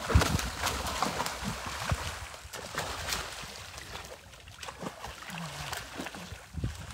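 A large fish trapped in a drag net thrashing at a pond's surface: a loud splash right at the start, then irregular splashing and sloshing water that slowly dies down.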